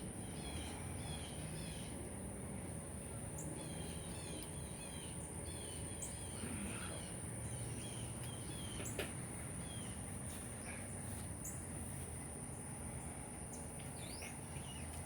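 Outdoor ambience: a songbird singing bouts of short, repeated chirping notes over a steady high-pitched insect drone and a low background rumble.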